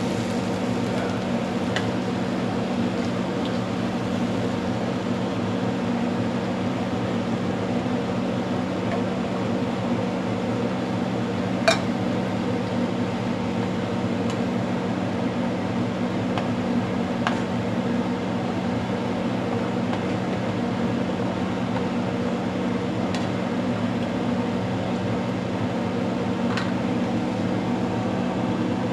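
A steady mechanical hum, like a kitchen fan, runs throughout. Over it, wooden spatulas stirring tuna in a nonstick frying pan give a few sharp taps against the pan, the loudest about twelve seconds in.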